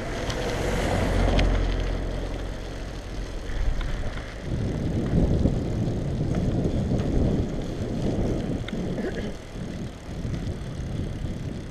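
Bicycle ride on cracked asphalt heard through a handheld action camera: wind buffeting the microphone over the rumble of the tyres, with a few light clicks. The buffeting swells in the first couple of seconds and turns rougher about halfway through.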